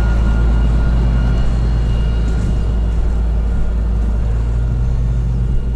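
John Deere 8520 tractor's six-cylinder diesel engine running steadily, a deep, even drone.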